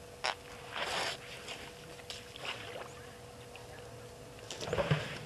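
Water splashing and sloshing in short irregular bursts as an African elephant drinks with its trunk, the loudest burst near the end. A faint steady hum runs underneath.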